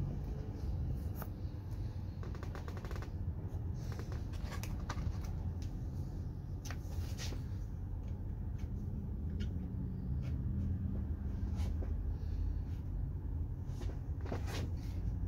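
A Lexan window pane being worked by hand into a Humvee door's window-frame channel: scattered scrapes, taps and clicks as it rubs and binds in the channel, over a steady low hum.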